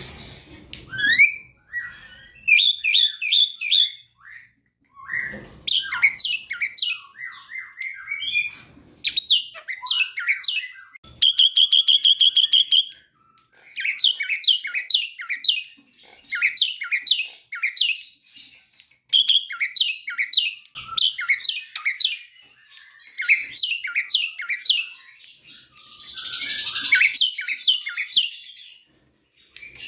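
Javan myna singing: quick phrases of sharp chirps and whistled notes broken by short pauses, with an even, fast buzzy trill about eleven seconds in and a harsh, noisy burst near the end.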